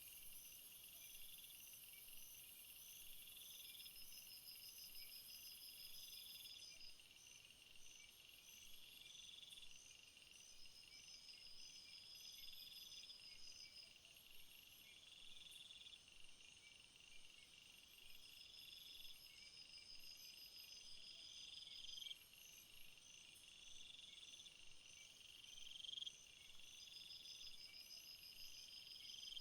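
Faint night-time jungle insect chorus: several insects calling at once, one repeating a short pulsed trill every two seconds or so, others giving longer trains of rapid chirps and a steady ticking above it. A high, thin hiss stops suddenly about six seconds in.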